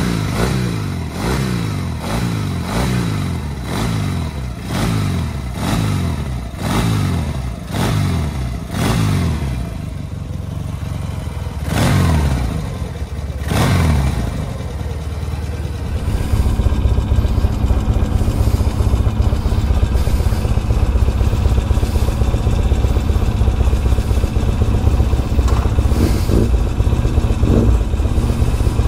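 Motorcycle engine being blipped on the throttle over and over, about once a second, its pitch dropping back after each rev, with two bigger revs near the middle. Then it settles into steady running, louder than the blips.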